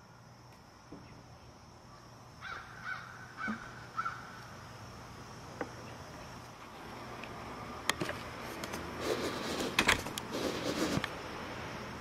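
A bird calls four times in quick succession, about half a second apart. Later come a few sharp clicks and a spell of rustling noise.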